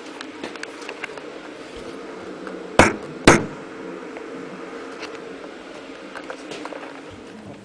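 Indesit WIE127 washing machine running with a steady low hum, broken by two sharp knocks about half a second apart near the middle.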